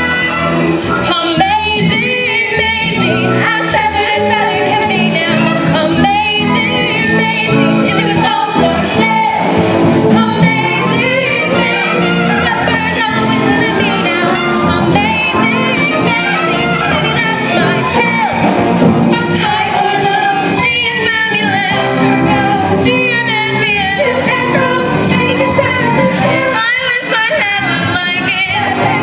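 A woman singing a musical-theatre number with instrumental accompaniment.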